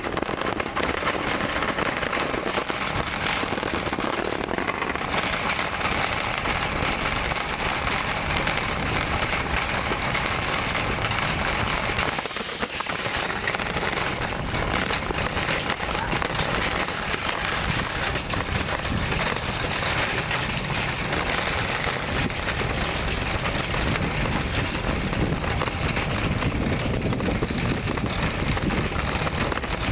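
Wire shopping cart pushed fast over asphalt, its wheels and metal basket rattling in a continuous loud clatter.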